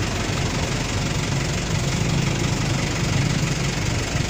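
A vehicle engine idling: a steady low rumble under a constant hiss.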